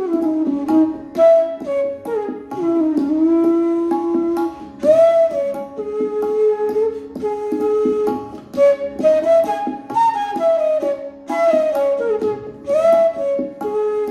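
Bansuri (bamboo transverse flute) playing a slow melody in Raag Kaushik Dhwani, with held notes and gliding slides between them over a steady drone.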